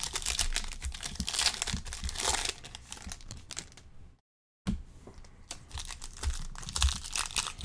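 Foil-wrapped trading card packs being torn open and crinkled by hand: a dense run of crackling, tearing rustles. The sound cuts out completely for about half a second just past the middle.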